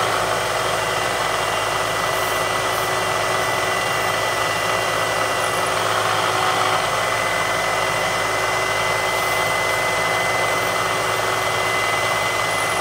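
Milling machine spindle running steadily while a 13/64 drill bit peck-drills holes in thick aluminium plate, with a steady high whine over the machine noise.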